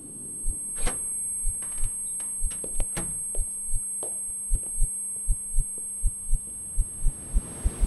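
Heartbeat sound effect: a double low thump about once a second that quickens toward the end, over a steady low hum. A rising hiss swells in near the end.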